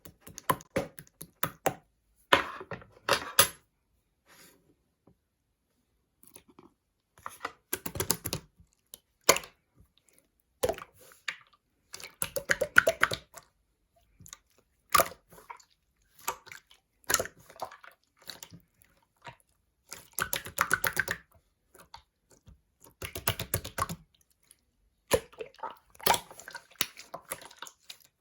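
Clear slime being squished and pressed by hand, giving bursts of wet clicking and crackling pops of a second or so each, with short quiet pauses between handfuls.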